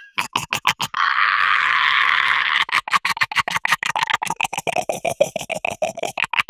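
Gremlin creature sound effect: a fast chattering stutter, then a raspy hiss lasting about a second and a half, then rapid chattering again.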